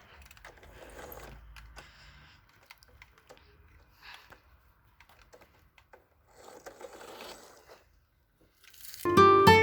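Faint scattered clicks and short rustles of something being handled, with quiet gaps between them; about nine seconds in, acoustic guitar music starts loudly.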